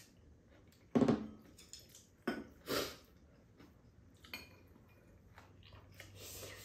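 Eating sounds at a table: bowls and chopsticks knocking, with a louder knock about a second in, and spaghetti being slurped off chopsticks near the end.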